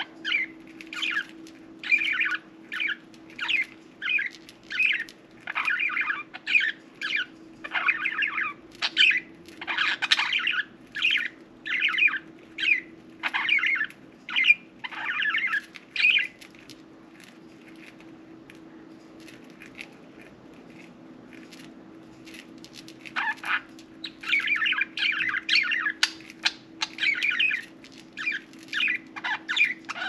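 Budgerigars chirping and chattering in quick runs of short calls. They fall quiet for several seconds midway, then start up again, over a steady low background hum.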